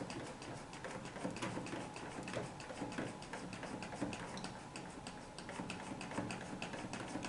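Foaming hand soap pump dispenser pressed over and over, giving faint, quick, even clicks several times a second as foam is dispensed.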